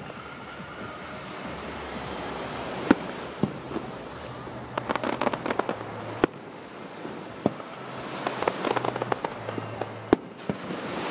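Aerial fireworks bursting: single sharp bangs about three seconds in and again near six, seven and ten seconds, with two spells of rapid crackling in between.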